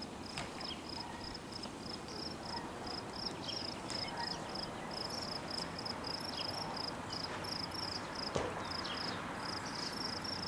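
Insect chirping steadily outdoors, a high chirp repeated about three times a second, over a faint background hiss, with a single soft click about eight seconds in.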